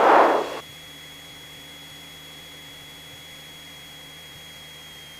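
A half-second burst of hiss at the start as a headset intercom microphone opens and closes, then a steady electrical hum with a thin high whine from the light aircraft's intercom feed.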